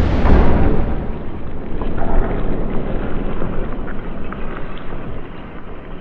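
Slowed-down sound of the air cannon's blast as it fires a baseball: a deep, drawn-out rumble, loudest in the first second, with a few faint crackles.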